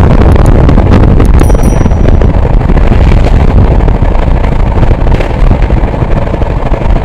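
Passenger train running at high speed, heard from an open carriage door: heavy wind buffeting the microphone over the steady rumble of wheels on rail, with a few sharp clicks about a second in.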